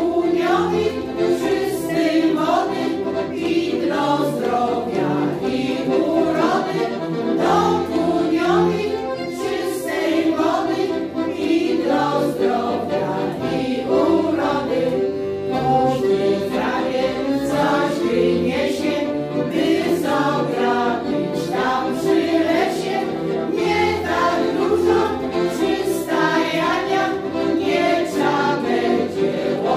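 Women's folk ensemble singing a Polish dialect folk song together, with an accordion accompanying.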